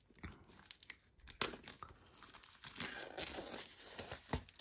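Plastic shrink wrap being nicked, torn and peeled off a Blu-ray box: crinkling and crackling with scattered sharp snaps, the sharpest about a second and a half in.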